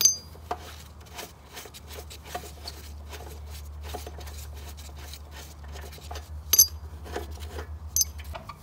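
Metal clinks, light knocks and scraping as the bolts holding the engine to a steel lawn mower deck are worked loose, with two sharp ringing clinks near the end. A steady low hum runs underneath and stops just before the end.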